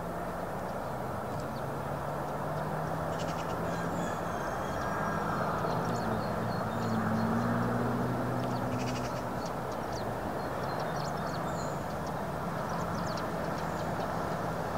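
A low, steady engine drone from a distance, rising slightly in pitch a little past the middle, over a steady outdoor rush. Faint bird calls sound above it.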